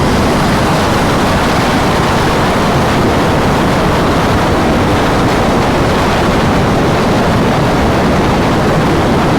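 Steady wind rush over a motorcycle rider's microphone at highway speed, a loud, even roar with no distinct engine note heard through it.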